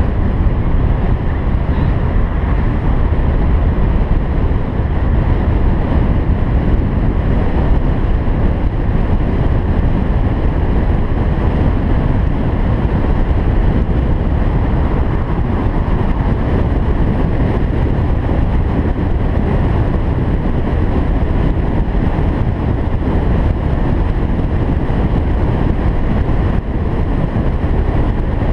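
Car driving at a steady speed: an even, unchanging low rumble of tyres on the road, wind and engine.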